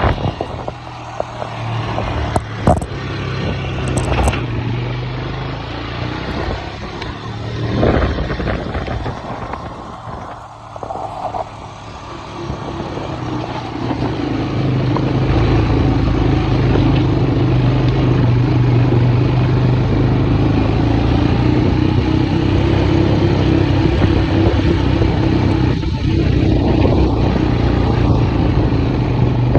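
Vehicle engine running while driving over a rough dirt track, with a few sharp knocks and clatter in the first several seconds; from about halfway through the engine runs in a steadier drone.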